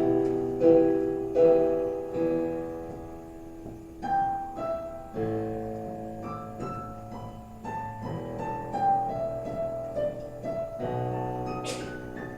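Piano playing an instrumental break in a song: a melody of held notes moving up and down over sustained chords.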